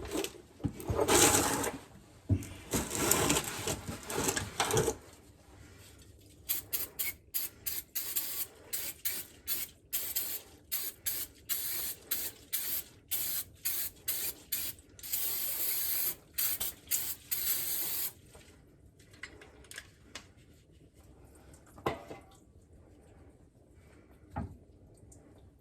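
Aerosol can of brake rejuvenation spray hissing onto a truck's rear axle housing: long sprays at first, then a fast run of short spurts and another long hiss. A few light knocks follow as it stops.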